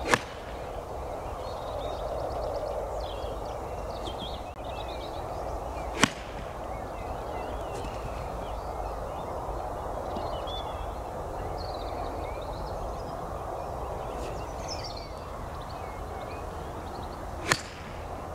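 Golf iron striking a ball off a tee mat: three sharp clicks, near the start, about six seconds in and near the end. Birds chirp in the background over a steady outdoor hush.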